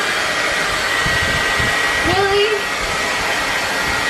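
Handheld hair dryer blowing steadily while drying hair: an even rush of air with a thin high whine.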